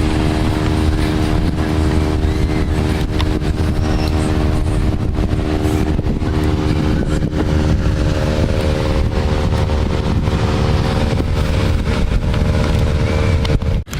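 Car driving at a steady speed, heard from inside the cabin: a constant engine drone over a heavy low road rumble, cutting out briefly right at the end.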